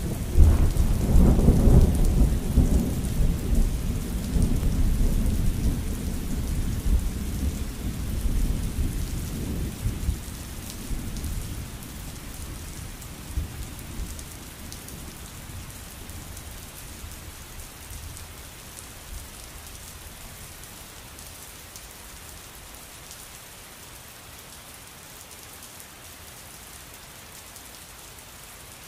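Thunderstorm: a long, deep roll of thunder that starts loud and fades away over about ten seconds, over steady rain that carries on alone afterwards.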